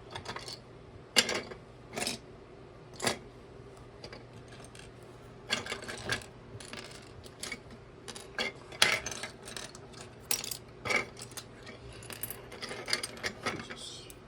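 Plastic building bricks clicking and rattling as pieces are handled and pressed together, a scattering of sharp irregular clicks.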